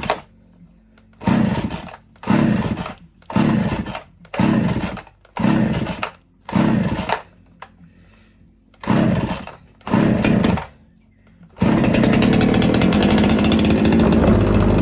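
Erman EM5201 two-stroke chainsaw being pull-started: eight quick pulls on the recoil starter about a second apart, then the engine catches about twelve seconds in and runs steadily.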